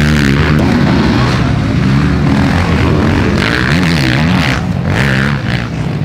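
Motocross bike engines revving on a race track, the pitch rising and falling again and again with the throttle.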